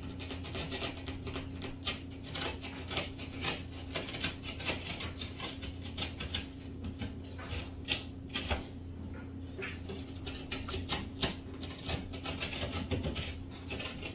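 A hand tool rasping and scraping at the edge of a drywall ceiling hole in short, uneven strokes, trimming the hole wider to fit a recessed light. A steady low hum runs underneath.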